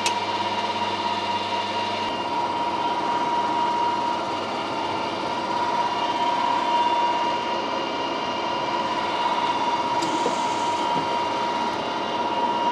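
Metal lathe running with a steady whine while a twist drill in the tailstock chuck is fed into the spinning stainless steel workpiece, drilling a small hole through it.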